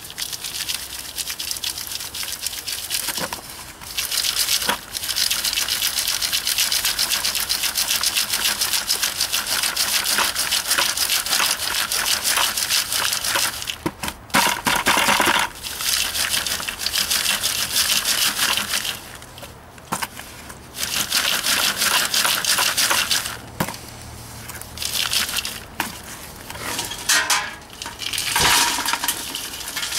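Lumps of crushed biochar rattling and scraping in a metal miner's sieve as it is shaken over a bucket, the fine char sifting through the mesh. The shaking comes in several long spells with short pauses between.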